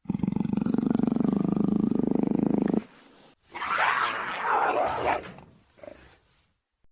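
Juvenile Tyrannosaurus rex creature sound effect. A low, pulsing growl lasts nearly three seconds; after a brief pause comes a higher, raspy roar that trails off.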